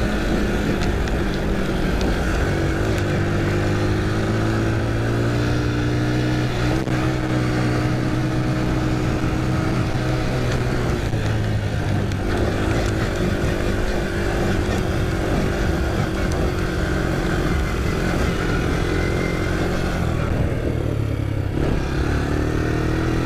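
Honda quad bike's single-cylinder four-stroke engine running at a steady cruising speed under way on a dirt track, its pitch creeping up a little near the end.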